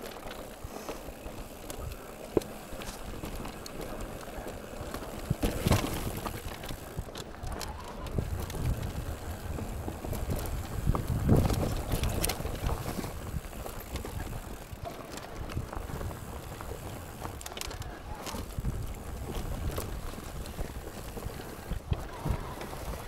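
Mountain bike rolling over a trail: tyre noise on rough ground with scattered rattles and knocks from the bike. A louder low rumble swells about halfway through.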